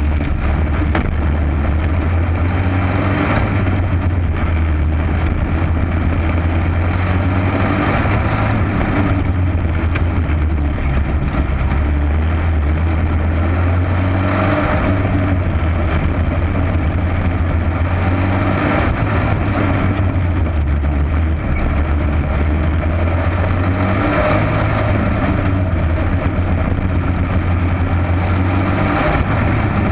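Racing kart engine heard from on board, running hard around a dirt oval, its note dropping and rising again every few seconds as the kart goes through the corners.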